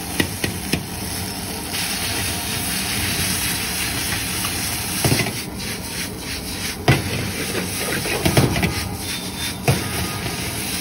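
Noodles stir-frying in a large wok: a steady hiss of the gas flame and the sizzle. A metal ladle clanks and scrapes against the wok several times as the chowmein is stirred and tossed.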